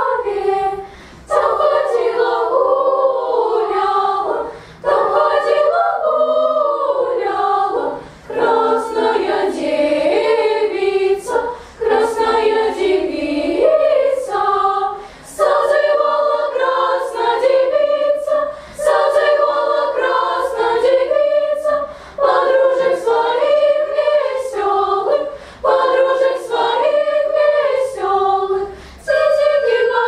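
Children's choir singing a Russian folk-song arrangement a cappella, in short phrases with brief breaks for breath between them. Near the end a small pipe comes in on one steady high note.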